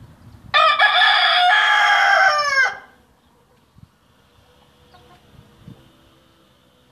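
A rooster crowing once: a loud crow of about two seconds that starts abruptly and falls in pitch at the end.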